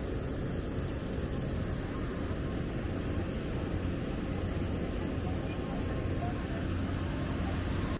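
Steady engine and air noise inside an airliner's cabin, mostly a low rush with no clear changes.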